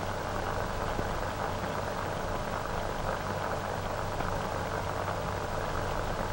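Steady hiss and crackle of an old optical film soundtrack, with a low hum underneath and no rhythm.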